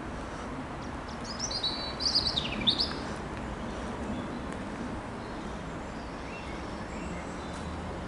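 A songbird singing one quick, twittering phrase of rapid high notes and falling sweeps, about a second and a half in, over a steady low background rumble.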